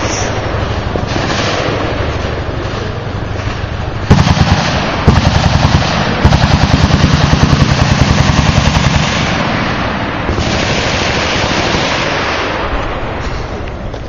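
Machine guns firing in rapid automatic bursts: three bursts starting about four seconds in, the last lasting about three seconds, over steady background noise.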